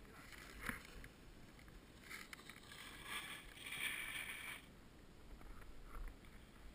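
Faint swishing scrape of skis on packed snow, loudest from about two to four and a half seconds in.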